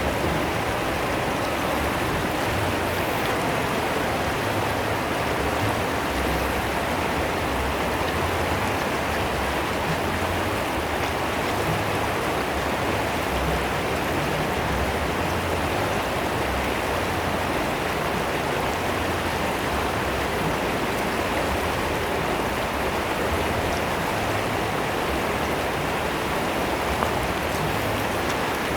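Swiftly flowing river water rushing and splashing: a steady, unbroken wash of water noise that stays at an even level throughout.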